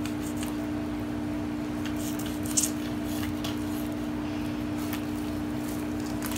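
Fillet knife slicing a snakehead fillet off the ribs on a plastic cutting board: faint scraping and a few light clicks of the blade, the sharpest about two and a half seconds in, over a steady low hum.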